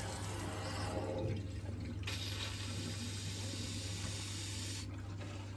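Water hissing steadily through a boiler's filling loop as the central heating system is pressurised, with a steady low hum underneath.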